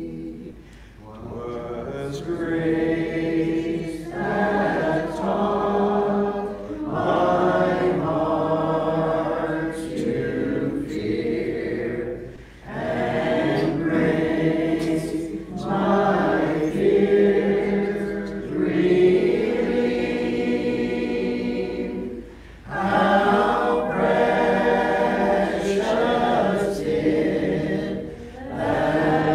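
Congregation singing a hymn a cappella, without instruments, phrase by phrase with short pauses for breath between lines.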